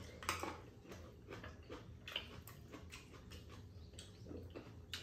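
Faint, scattered clicks and taps of chopsticks against bowls and a pan, with chewing of tteokbokki and grapes; a sharper tap comes about a third of a second in and another just before the end.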